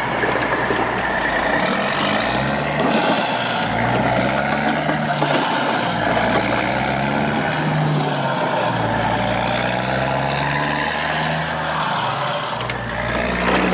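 A truck engine revving up and down, its pitch rising and falling, over a steady rushing noise.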